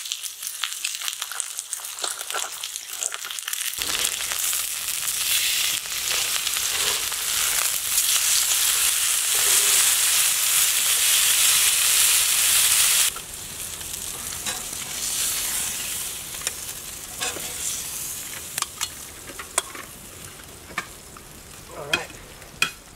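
Wagyu steaks sizzling on a hot griddle plate over a campfire. The sizzle swells about four seconds in and drops off suddenly about thirteen seconds in, leaving a quieter sizzle with scattered pops.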